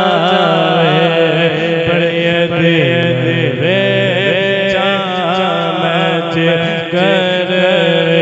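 A man's solo voice singing a naat, an Islamic devotional poem in praise of the Prophet Muhammad, into a microphone. He uses long held phrases with ornamented turns that glide up and down.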